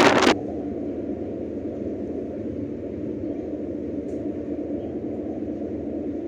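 A loud rush of wind noise on the microphone cuts off just after the start, leaving a steady low engine rumble with a faint hum.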